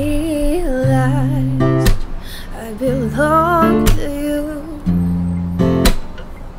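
Acoustic guitar strumming a slow chord progression, the chords changing about once a second, while a woman sings two short wavering phrases over it.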